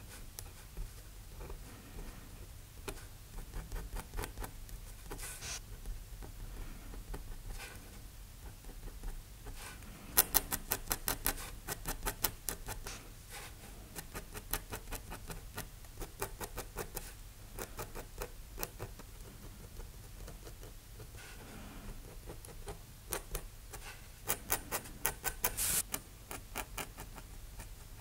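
Steel mapping-pen nib scratching on paper in short quick strokes as fine ink lines are drawn. Dense runs of rapid strokes come about ten seconds in and again near the end.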